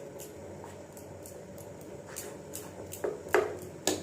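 A spoon stirring melting chocolate in a bowl over hot water, with light clicks and scrapes against the bowl, the louder ones about three seconds in and near the end, over a steady low background noise.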